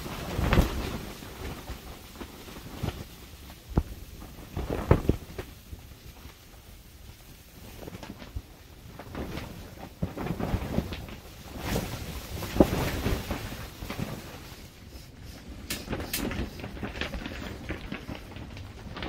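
Storm wind battering a mess tent, heard from inside: the fabric walls flap and rattle in irregular gusts that swell and fade every few seconds.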